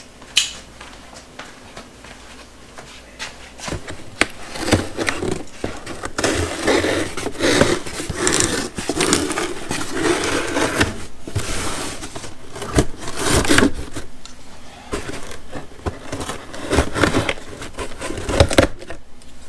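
A folding knife slicing through the packing tape of a cardboard shipping box, with cardboard scraping and rustling and clicks as the box is gripped and turned. The cutting and handling start about four seconds in, after a single sharp click just after the start.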